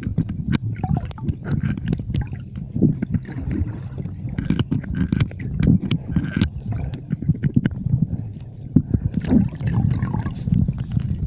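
Water sloshing and gurgling close to the microphone, with many small clicks and knocks throughout.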